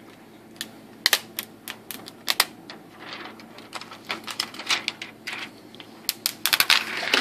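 Irregular sharp clicks and taps from handling the laptop's screen parts, with short scratchy rustles in between, such as a protector film being peeled off.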